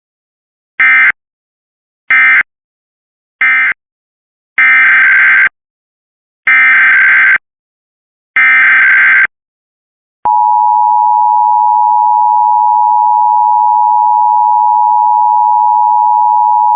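Emergency Alert System tones. First come three short buzzy SAME data bursts, the end-of-message code, then three longer SAME header bursts about two seconds apart. About ten seconds in, the steady two-tone EAS attention signal (853 and 960 Hz) starts and holds.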